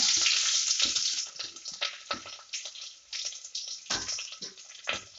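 Sliced onions hitting hot ghee in a clay pot, sizzling loudly at first and then settling over a second or two into a thinner crackle with scattered pops.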